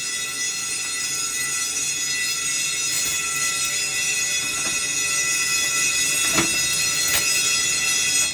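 A fire alarm system's bells ringing together in a loud, steady clang. They stop abruptly at the very end, leaving a fading ring.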